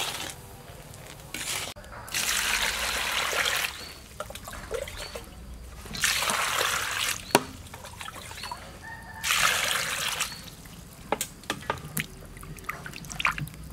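Water poured in three separate streams of about a second each over fresh vegetables in a basin, splashing, with short knocks and splashes between pours as the vegetables are rubbed clean by hand.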